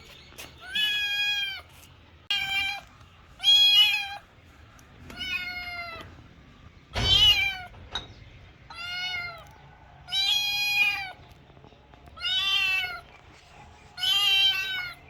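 A kitten meowing repeatedly in high, drawn-out meows, about nine in all, each roughly half a second to a second long. The loudest comes about halfway, with a low thud under it.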